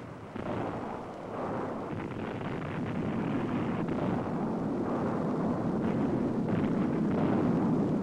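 Dynamite rock blast in a canyon: a long, continuous rumble of the explosion and tumbling rock, with no sharp bang, slowly building and loudest near the end.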